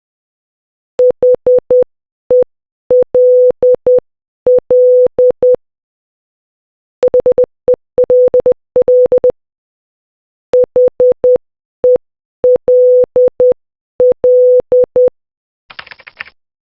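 Morse code for HELL (.... . .-.. .-..) sent as a steady mid-pitched beep tone, keyed in short dits and longer dahs. It plays three times: at a moderate speed, then faster, then at the moderate speed again. A soft brief hiss follows near the end.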